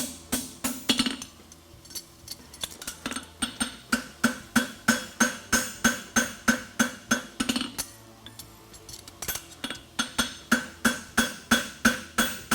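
Farrier's hammer striking a steel horseshoe on an anvil in a steady rhythm, about three ringing blows a second, with short pauses about two seconds in and around eight seconds.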